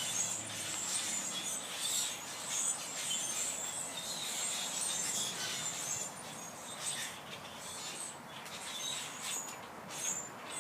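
A large flock of blackbirds calling all at once: a dense, continuous chatter of many overlapping high chirps.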